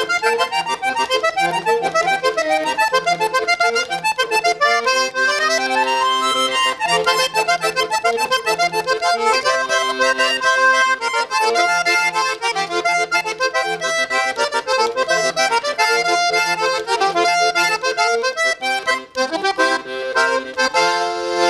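Diatonic button accordion playing a paseo vallenato: quick melodic runs over regularly pulsing bass notes. It stops abruptly at the end.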